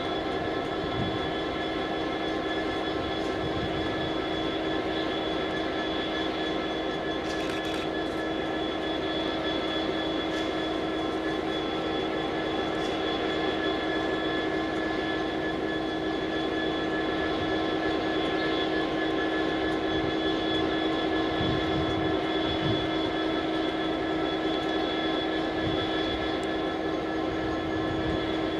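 Class 66 diesel-electric locomotive's two-stroke V12 diesel engine idling while the train stands: a steady, unchanging drone with several constant tones on top.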